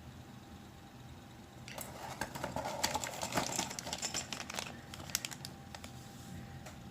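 Packaging crinkling in a dense burst of rustling and clicks from about two seconds in to about five seconds in, then a few scattered clicks.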